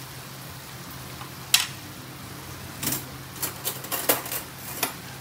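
Metal cutlery clicking and clattering in a kitchen drawer as metal chopsticks are picked out: one sharp knock about a second and a half in, then a run of clicks from about three to five seconds in, over a low steady hum.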